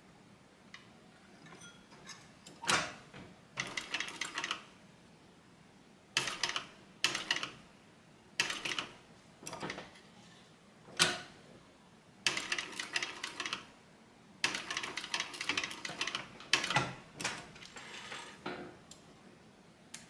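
Cylinder-arm industrial sewing machine stitching leather in short runs of a few stitches at a time, a rapid clatter that stops and starts about a dozen times.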